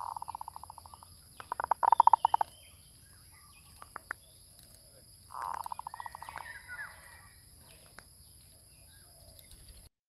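Zebra dove (merbuk) calling from a lure-call recording: three bouts of rapid staccato cooing, each about a second long, the second one the loudest.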